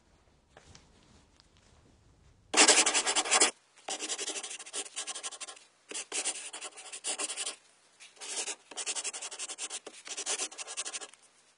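Marker pen rubbing across a whiteboard as a phrase is written, in quick strokes grouped into words; it starts about two and a half seconds in, and the first group of strokes is the loudest.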